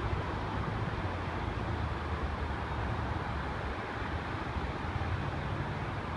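Steady low rumble and hiss of distant airport and road traffic, with a faint steady whine.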